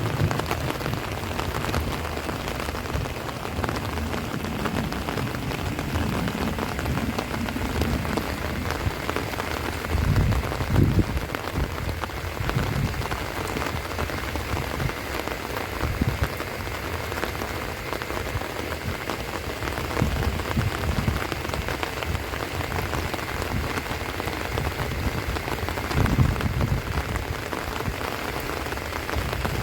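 Heavy rain falling steadily, a dense even hiss of rain. Now and then a short low rumble swells up, most strongly about a third of the way in and again near the end, as strong wind gusts hit the microphone.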